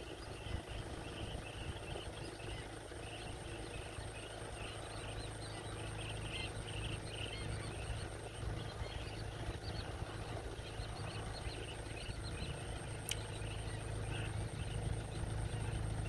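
A large flock of wading birds calling, a dense chatter of short calls that thins out after about nine seconds, over a steady low hum.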